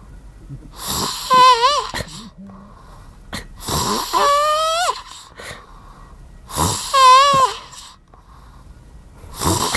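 A person snoring loudly, three times about three seconds apart, with a fourth snore starting near the end. Each snore begins as a harsh rasp and turns into a wavering, whistle-like tone; the second one rises in pitch before breaking off.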